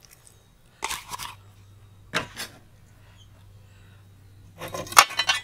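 Short scraping and rustling handling noises of a plastic cup and a steel plate as garlic paste is scraped out onto a pile of spice powders, with a louder clicking, clattering scrape near the end.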